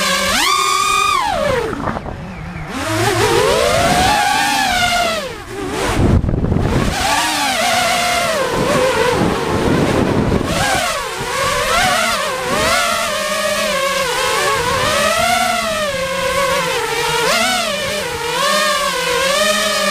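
Small multirotor drone's electric motors whining, the pitch swooping up and down with the throttle. There is a sharp rise about a second in and two brief drops around two and five and a half seconds, then quick repeated swells.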